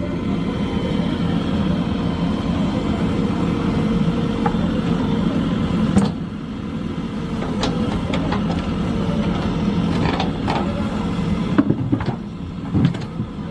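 JCB 3DX backhoe loader's diesel engine running steadily, with a few sharp knocks and clanks from about six seconds in and a cluster of them near the end.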